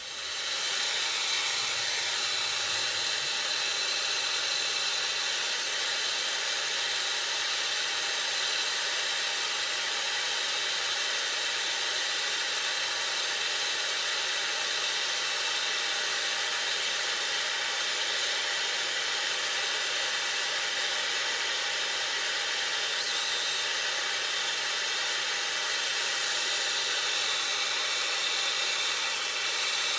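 Handheld soldering torch burning with a steady hiss while it heats a copper pipe fitting for soldering.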